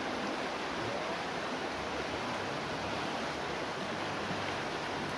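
Steady rush of a fast-flowing, turbulent river.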